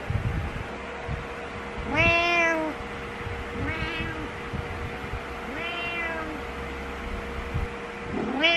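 Domestic cat meowing insistently to wake its owner: four meows about two seconds apart, each rising then falling in pitch, the first the loudest.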